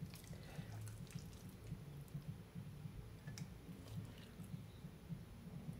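Faint eating sounds: a fork working through soft, cheesy lasagna in a glass baking dish, with a few short clicks and wet chewing. A low uneven hum runs underneath.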